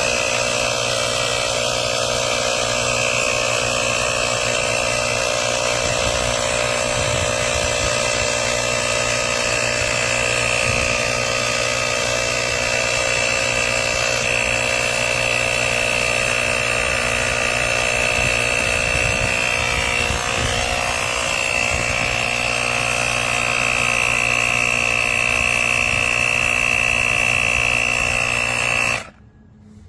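Portable cordless tire inflator's small air compressor running steadily with a buzzing motor whine, then stopping abruptly near the end.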